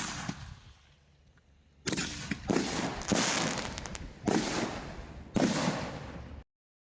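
Aerial firework shells bursting: a sharp crack at the start, then five loud bangs in quick succession, each trailing off over about a second. The sound cuts off suddenly near the end.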